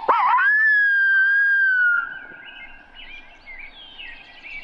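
Coyote howler call blown as a turkey locator call: a quick wavering yip, then one long howl held about a second and a half, sliding slightly down in pitch and cut off about two seconds in. The call is meant to shock roosted gobblers into gobbling. Faint bird chirps follow.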